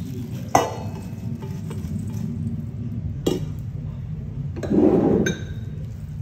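Stainless steel bowls clinking together as cooked rice is tipped from one into another: a sharp metallic clink about half a second in and another around three seconds. A brief louder scraping noise near five seconds ends in one more clink, over a steady low hum.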